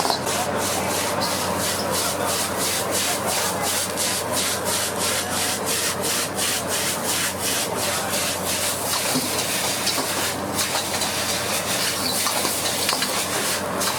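Stir-frying in a wok: a steady sizzle with a metal spatula scraping and tossing the food in an even rhythm of about three strokes a second, the rhythm loosening over the last few seconds.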